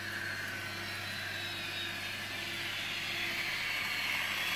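Kato N-gauge model of the VT 18.16 diesel railcar set running along the track: a steady whir of its small motor and wheels rolling on the rails, growing louder about three seconds in as it comes closer.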